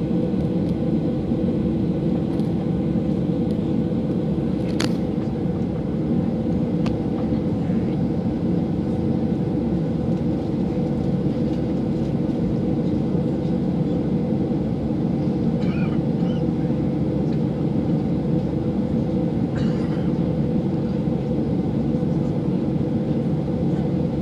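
Cabin noise inside a Ryanair Boeing 737-800 taxiing: a steady low drone from its CFM56 engines at taxi power, with a single sharp click about five seconds in.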